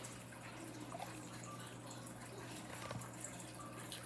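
Contact lens solution dripping into a bowl of slime mix: faint drips and a couple of small clicks over a low steady hum.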